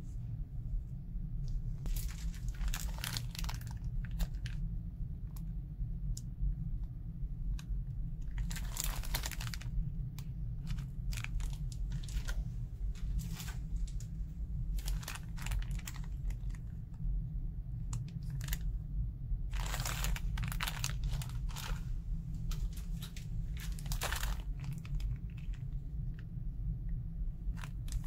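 Plastic packaging crinkling and tearing in irregular bursts as items are unboxed, over a steady low hum.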